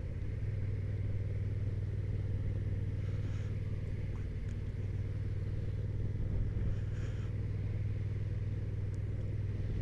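Honda NT1100's 1,084 cc parallel-twin engine running steadily at an even cruising speed: a constant low drone.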